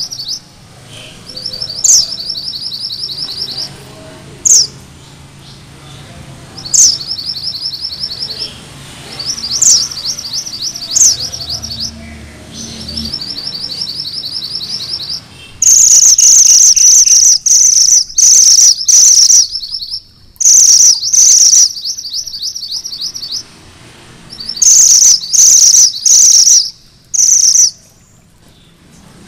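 A male minivet (mantenan gunung merah) sings in rolling trills. Each is a rapid string of high notes about a second and a half long, usually opened by a short sharp upward note. From about halfway the trills come louder and closer together.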